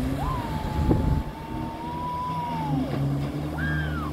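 Jet ski engine running steadily as it passes over the water. Over it, a long high note is held for nearly three seconds, and a shorter falling note comes near the end.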